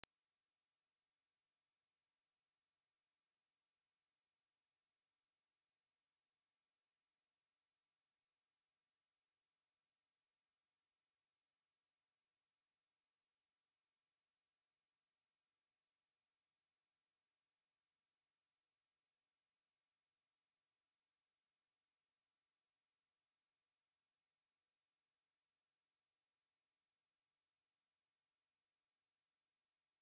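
A pure 7933 Hz sine-wave test tone: one steady, unchanging high-pitched whistle at constant level.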